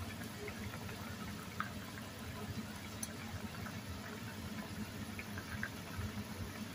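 A pot of pork soup bubbling at a steady boil, with small pops scattered over a low, even hiss.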